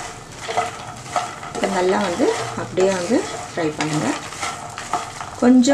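A wooden spatula stirring puffed lotus seeds (phool makhana) in a pan of hot ghee, scraping across the pan as it turns them, over a light sizzle of frying.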